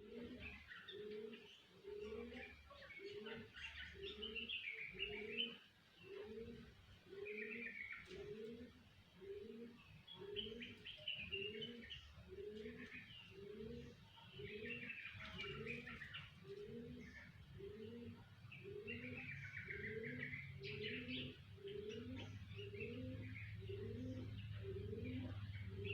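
Young long-tailed shrike (cendet) singing a rambling, unformed practice song of chirps and short warbles, the stage where it is just starting to learn its song. Behind it a low cooing pulse repeats very evenly, about once every three-quarters of a second.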